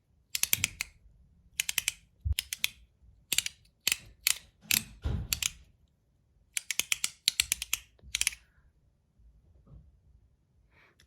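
Zirconium haptic coin fidget being worked by hand, its magnet-detented halves snapping through their positions in quick bursts of sharp metallic clicks, several clicks per burst with short pauses between. The clicking stops about two thirds of the way in.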